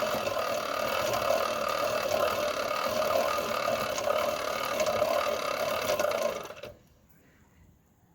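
Pedal-driven three-phase brushless DC motor, used as a generator, spinning with a steady whine. It stops suddenly about six and a half seconds in.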